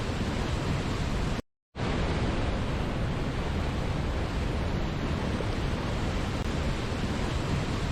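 Waterfall: a steady, even rush of falling water. It cuts out to silence for a moment about a second and a half in, then resumes unchanged.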